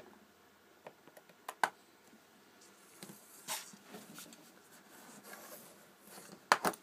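Light clicks and scraping of a small screwdriver working at a stubborn screw in a mobile phone's plastic casing, with two sharper clicks near the end.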